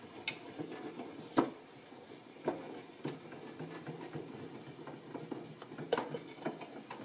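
Benchtop drill press running with a steady hum while a bit drills into a wooden plate, with several sharp knocks scattered through.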